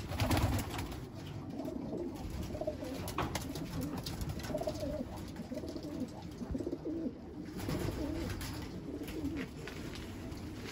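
Many pigeons in a loft cooing, their calls overlapping.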